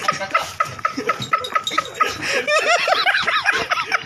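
A person laughing in rapid, breathy bursts, rising into higher-pitched squealing laughter in the second half.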